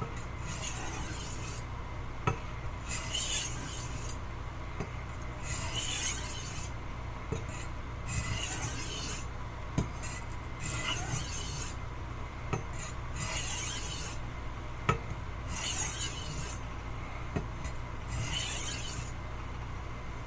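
Steel blade of a Wusthof Classic chef's knife rasping along a wet whetstone in slow, even strokes, about eight of them, with a few light clicks between strokes. The edge is being worked to raise a burr.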